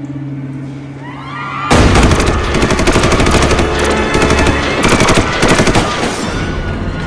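Rapid machine-gun fire from an arcade shooting game breaks in suddenly about two seconds in and runs in long bursts, with a short break, until about six seconds in, over background music.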